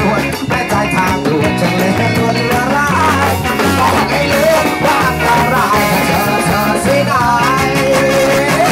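Live street band playing: electric guitars, bass guitar, drum kit and trombone, with a trumpet and a singer on microphone.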